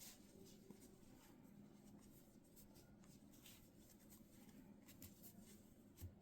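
Faint rustling and light scratchy ticks of a crochet hook drawing yarn through stitches, with a soft low thump near the end.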